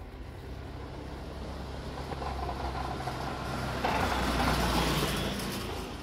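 A motor vehicle's engine running as it passes close by, a low steady hum that grows louder to a peak about four to five seconds in and then fades.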